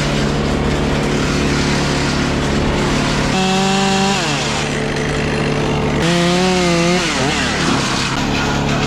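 Chainsaw cutting ironwood, revved up twice for about a second each time, its pitch wavering in the cut and dropping as it is let off, over a steady engine drone.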